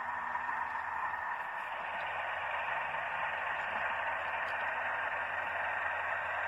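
OO gauge model freight wagons rolling along the track: a steady rushing hiss with a faint low hum.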